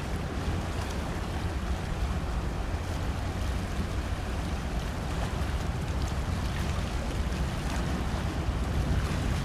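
A large patrol ship under way on the water: a steady deep rumble under a wash of water and wind noise, with wind on the microphone.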